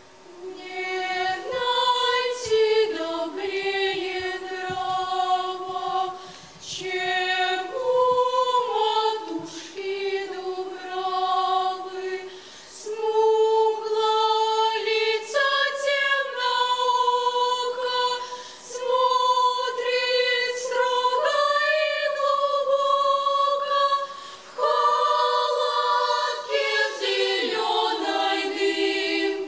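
Mixed choir of boys and girls singing a cappella, in harmony. The song begins about a second in and moves in phrases with short breaks between them.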